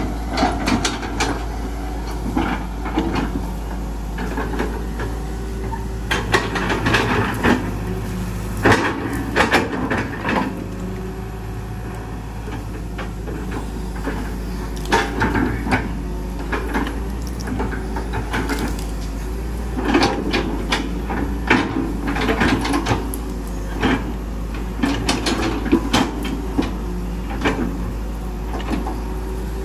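Hitachi EX120 hydraulic excavator working: its diesel engine runs steadily under repeated knocks and clanks from the bucket and boom as it digs and dumps soil.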